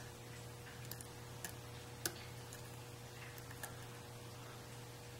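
Faint, scattered ticks of a hook pick working the pin stack of a Yale Y210 padlock's 5-pin core under tension, about five small clicks over a low steady hum.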